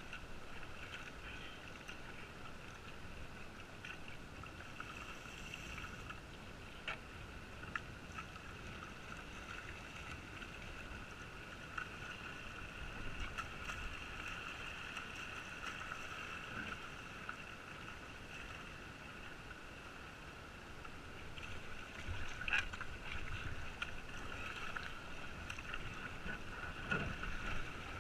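Kayak paddled down a shallow rocky river: paddle strokes and water splashing against the hull, with a steady high-pitched hum throughout. The water sound grows louder and busier over the last few seconds.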